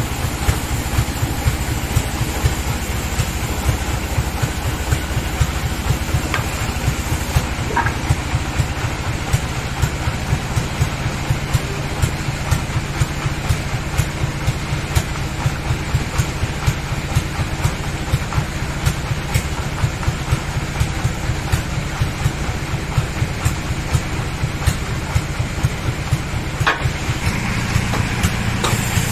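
Sawmill bandsaw machinery running steadily, its engine drive giving a low, fast, even pulsing, with a few faint knocks on top.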